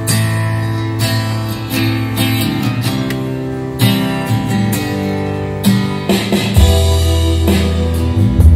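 Guitar-led music played back through a pair of Sherman SB-66TT+ bookshelf speakers in a store demo, with a strong deep bass line coming in about six and a half seconds in.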